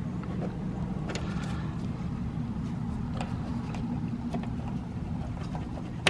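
Steady low rumble, with a few faint light clicks of a screwdriver and hands against the metal terminals of an air-conditioner run capacitor.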